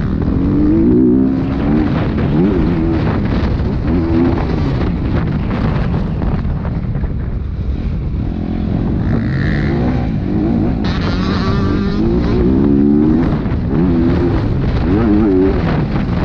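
Dirt bike engine, heard from on board, revving up and down over and over as the throttle is opened and closed and gears are shifted, over a steady rushing noise. A second, higher-pitched engine note briefly joins about two-thirds of the way through.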